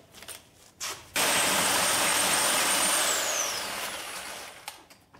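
A handheld power cutting tool (cut-off tool) starts up about a second in and runs at a steady high whine with a loud hiss for about two seconds. It is then released and winds down, its whine falling in pitch as the noise fades.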